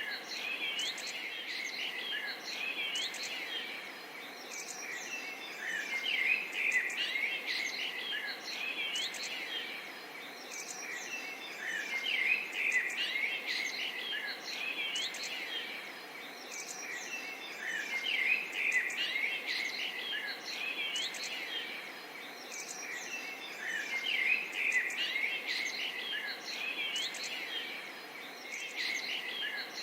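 A chorus of many small birds chirping and singing together over a steady background hiss, the chirping swelling and easing about every six seconds.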